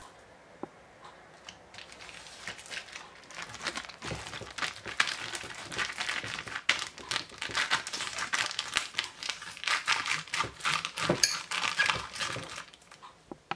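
Thick plastic freezer bags, filled with vegetables and brine, crinkling and rustling as they are pushed down into a glass jar. A dense run of crackles starts about two seconds in and fades near the end.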